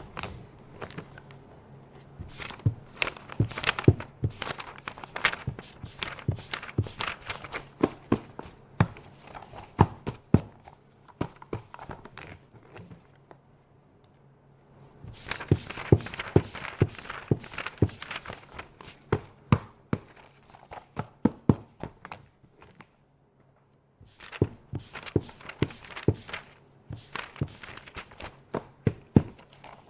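Office paper being handled, with rustling and a quick run of sharp clicks, taps and knocks. It falls silent briefly twice, about 13 seconds in and again about 22 seconds in.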